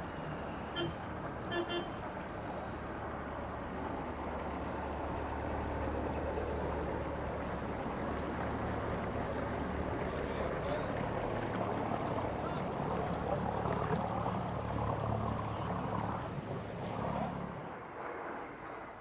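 A boat's engine running steadily as it passes, growing louder through the middle and falling away near the end, with two brief high pips about a second in.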